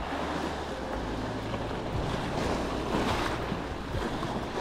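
Sea waves washing and breaking over the rocks just below, with wind rumbling on the microphone.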